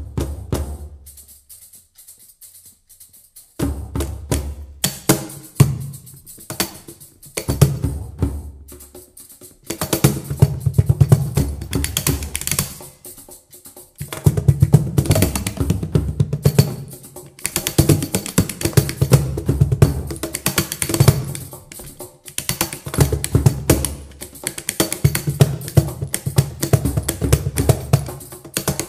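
Hand-drum trio of doholla (large bass goblet drum), cajon and tamburello frame drum playing percussion together. After a single stroke and a short pause, the drums play short phrases with breaks, then settle into denser, steadier playing from about ten seconds in, with deep bass strokes under sharp slaps.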